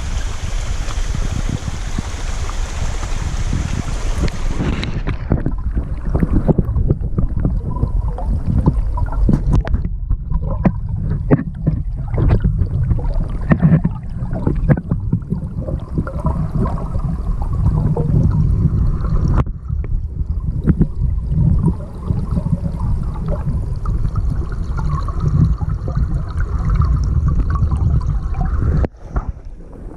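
Wind buffeting the microphone: a heavy, uneven low rumble with scattered knocks. For the first five seconds a steady rushing hiss sits over it, then cuts off suddenly.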